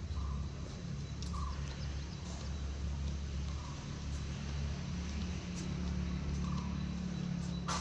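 A machine's steady low hum, with a few short faint chirps over it and a sharp click at the very end.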